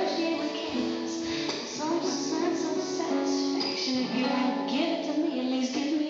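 A song playing, with a singer over plucked guitar.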